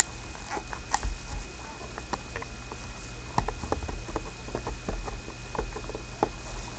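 Hands handling a trading card box and its packaging: scattered light taps, clicks and rustles at an uneven pace.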